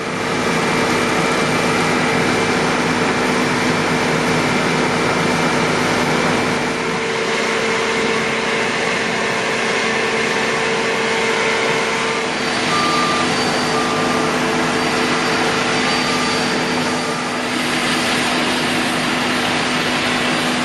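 Combine harvester running steadily under harvesting load, a steady mechanical whine over the engine, with a few short high beeps a little after the middle.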